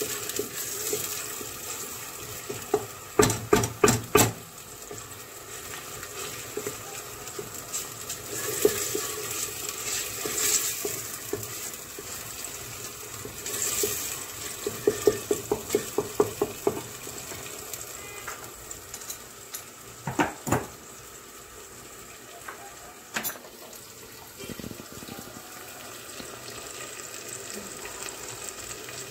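Chopped onion sizzling in oil in a stainless steel pot, with a wooden spoon stirring and knocking against the pot in quick runs of taps, twice in longer runs and a few times singly.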